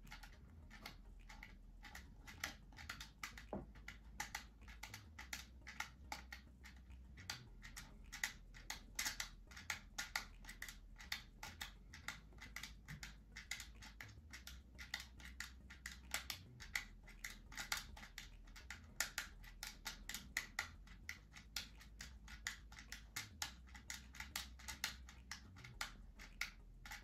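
Winder (time-setting knob) on the back of a battery quartz clock movement being turned by hand, giving a faint run of rapid, uneven clicks as the hands are wound round the dial.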